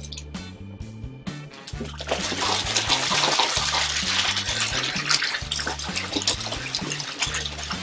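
Background music with a repeating bass line; about two seconds in, a loud rush of running water starts and goes on over it.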